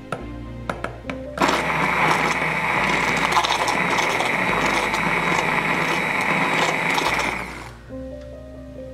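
Handheld immersion blender running in a glass bowl of oil-and-water cream mixture, blending it to emulsify: it starts about a second and a half in after a few clicks, runs steadily for about six seconds, and cuts off near the end.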